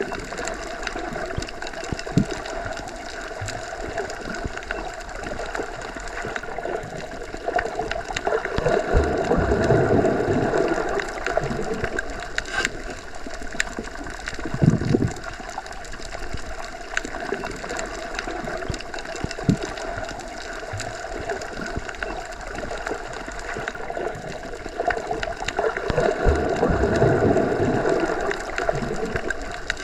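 Underwater water ambience: a steady wash of water noise with scattered faint clicks, swelling into louder rushes of water about 8 seconds in and again near the end, and a short gush around the middle.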